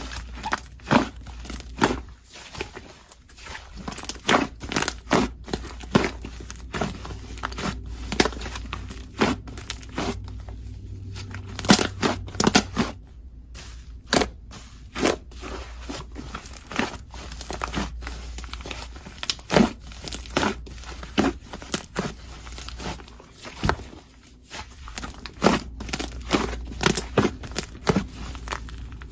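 Slime being kneaded and pressed by hand while clay is mixed into it, giving irregular sticky pops and crackles, several a second.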